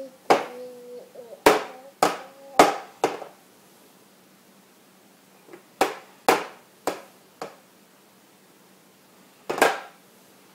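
Plastic toddler plate being banged down on a plastic high-chair tray: ten sharp knocks, five in quick succession at the start, four about half a second apart in the middle and one more near the end.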